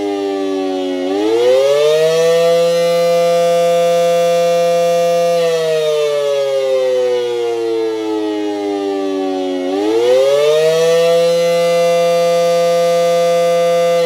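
Federal Signal SD-10 outdoor warning siren sounding a wail: the pitch rises about a second in, holds high for about three seconds, falls slowly, then rises and holds again near the end. This rise-and-fall wail is the Attack signal, not the steady Alert tone.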